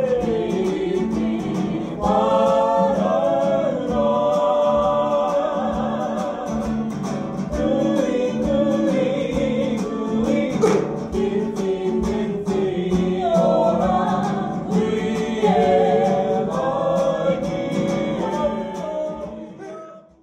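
Background music: a group of voices singing together over instrumental backing, fading out near the end.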